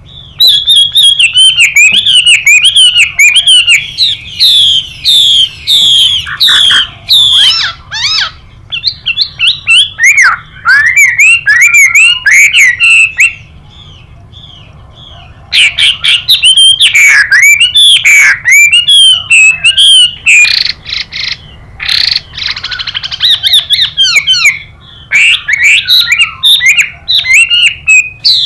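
Chinese hwamei (họa mi) singing a loud, varied song of quick, sliding whistled notes, with a pause of about two seconds halfway through.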